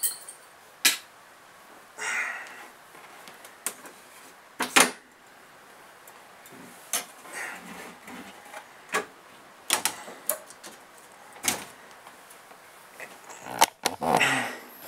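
Scattered sharp clicks, taps and knocks, with a short scrape about two seconds in and a rustle near the end, from small parts and tools being handled while working inside a pinball machine.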